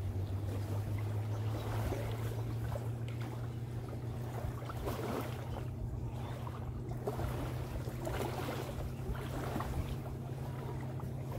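Low, steady drone of a distant motorboat engine, with small waves lapping at the shore in soft washes every second or two.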